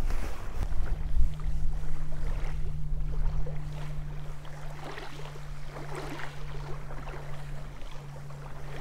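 Wind buffeting the microphone at first, then a steady low motor drone with a fainter overtone above it, and a few faint clicks from a spinning reel being cranked.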